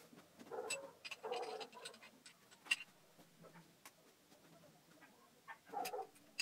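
Quiet clicks and scrapes of a Spyder MRX paintball marker's metal and plastic parts being handled during reassembly, with a sharper click a little under three seconds in.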